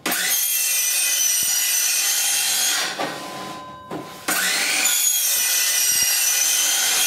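Circular saw riding a sliding saw table and cutting through vinyl siding, with a high whine. It runs in two passes of about three seconds each, with a short drop between them, cutting the notch for a window.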